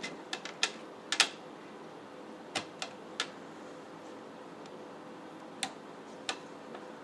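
Sharp clicks and taps of a CPU cooler's metal backplate bracket and mounting hardware being handled and adjusted by hand to line up with an Intel LGA1700 socket. The clicks come irregularly: a quick cluster in the first second or so, three more a little later, and two near the end.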